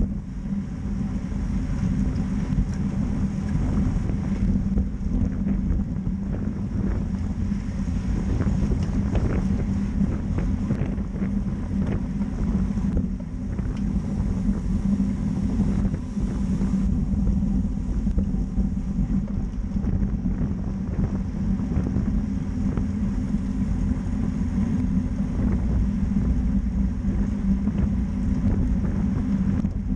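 Wind buffeting the microphone of a camera on a road bike riding at about 25 mph in a racing pack, over a steady low hum.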